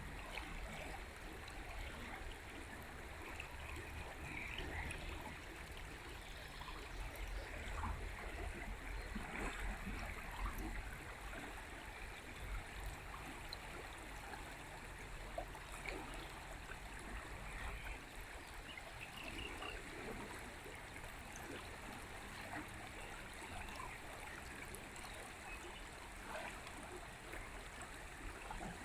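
River water flowing steadily over stones, a continuous rushing and trickling with a low rumble beneath.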